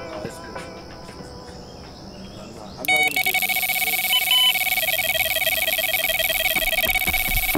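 Electronic carp bite alarm going off about three seconds in and sounding without a break as a rapid, high beeping, with brief changes of pitch: a carp has taken the bait and is running line off the rod fast.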